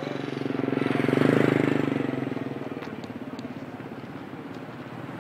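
Motorcycle engine passing by, swelling to its loudest about a second in and then fading away.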